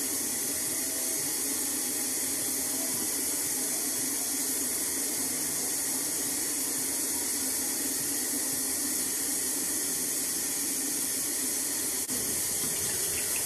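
Sink tap running steadily, a constant rush of water while a face is washed.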